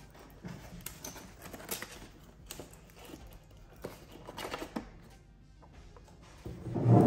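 Light clicks and rustles of hands feeding the afterburner LED wiring into a foam RC jet airframe, with a louder bump near the end, over quiet background music.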